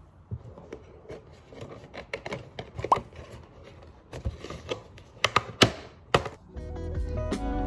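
Cardboard cake box being opened by hand: irregular taps, scrapes and rustles of the paperboard flaps. Music starts near the end.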